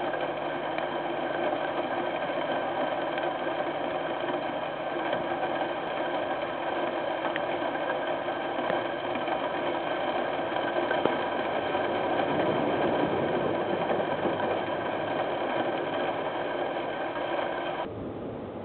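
Diesel train engine running with a steady hum and whine. It changes abruptly near the end, giving way to a quieter rumble.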